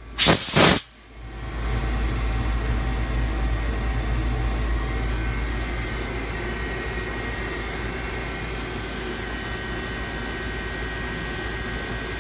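A hand-held blow gun hissing in one short blast just after the start, cleaning off the freshly cut thread inside a DMG CTX 410 CNC lathe. Then the lathe runs with a steady mechanical hum that gets a little quieter after about six seconds.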